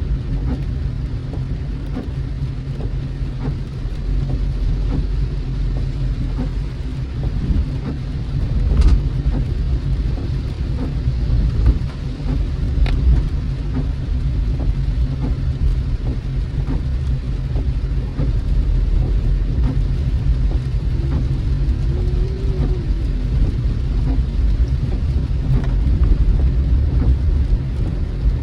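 A car driving in the rain, heard from inside the cabin: steady low road and engine rumble with scattered ticks of raindrops hitting the car.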